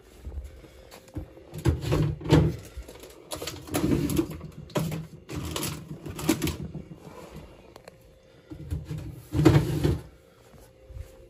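Things being handled in an open refrigerator: an irregular run of knocks, bumps and rustles as items are set on the shelves and moved about. The loudest bumps come about two seconds in and again near the tenth second.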